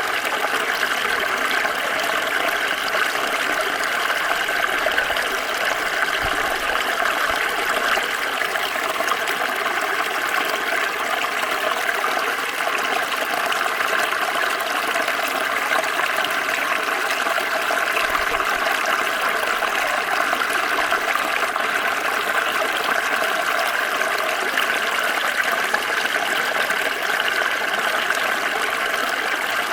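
Small stream of water flowing steadily, a continuous rushing and trickling that stays even throughout.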